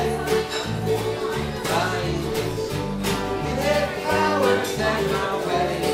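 Acoustic guitars strummed together in a steady rhythm, with voices singing a country-style song.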